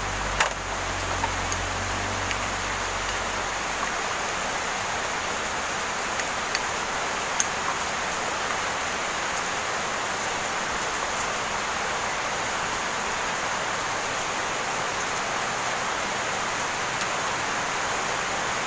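Heavy rain falling, a steady hiss with no let-up, with a few faint clicks from the brake caliper and pads being handled.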